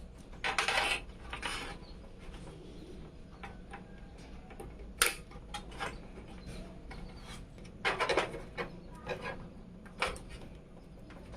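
Computer parts being handled during assembly: short bursts of rubbing and scraping, with a sharp click about five seconds in.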